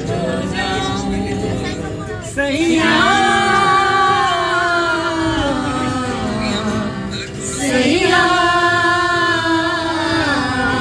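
A group of men and women singing a song together to an acoustic guitar, in long held notes, with new phrases swelling in about two seconds in and again near eight seconds.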